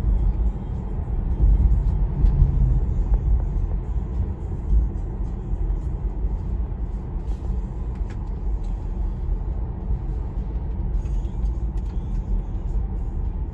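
Road and tyre noise inside a Tesla's cabin while driving at about 50 km/h: a steady low rumble with no engine note.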